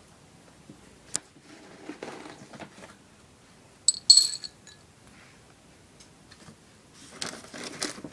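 Rustling at a pet rabbit's cage, with a pair of sharp, ringing metal clinks about four seconds in, then crinkling rustles building near the end.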